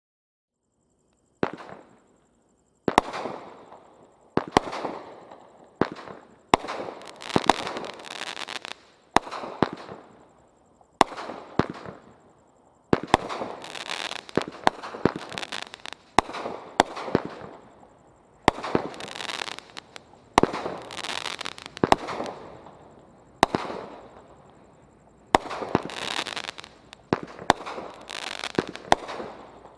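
Brothers Pyrotechnics Irish Legend 30-shot, 500 g firework cake firing shot after shot, starting about a second and a half in. Each shot is a sharp launch crack followed by about a second of noisy burst, at irregular gaps of one to two seconds.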